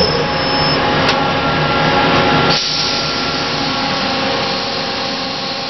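CNC lathe running as it turns a pencil to a point: a steady machine hiss with a faint high whine. About two and a half seconds in, the low hum drops away and the hiss turns brighter.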